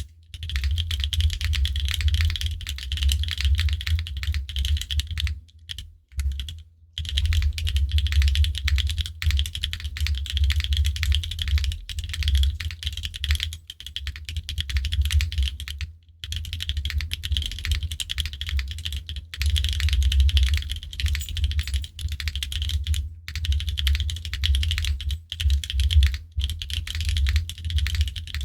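Rapid continuous typing on a Neo65 mechanical keyboard with Dangkeebs Cookies n' Cream tactile switches and GMK keycaps: dense, clacky, high-pitched keystrokes. There is a short break about six seconds in.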